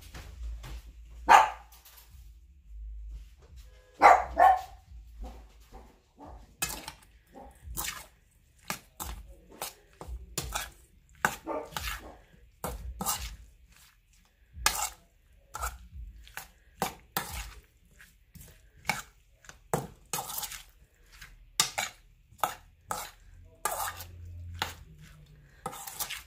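A utensil stirring chopped salsa in a stainless steel bowl: a long run of short scrapes and clinks against the metal, irregular and a few a second. Two louder sharp sounds stand out about one and four seconds in.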